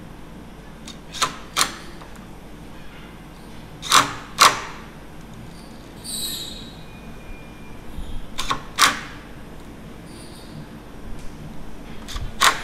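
Makita cordless impact driver driving screws into a pre-drilled metal door-frame profile in short bursts: brief sharp knocks, mostly in pairs, about a second in, around four seconds, around eight and a half seconds and again near the end.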